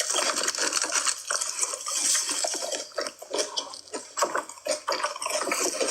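Noisy close-miked eating of crab: wet chewing, slurping and crunching, with a dense, irregular run of clicks and clatter.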